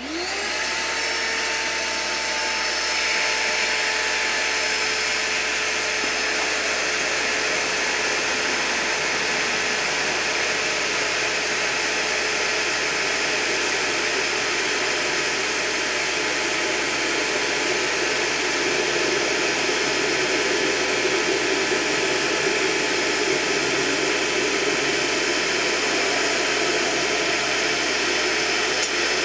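Shop vacuum switched on, its motor spinning up with a rising whine over the first second, then running steadily. It serves as a blower, drawing air through the wood-gas generator while the fire is lit for a cold start.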